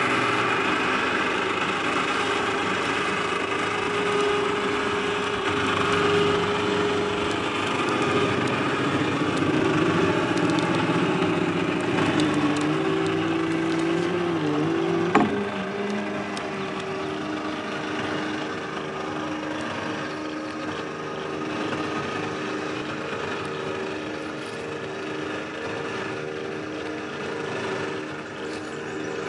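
Electric motor of the slide-on camper's remote-controlled opening mechanism running with a steady hum. Its pitch sags about halfway through, then a sharp clunk, after which a quieter steady hum carries on.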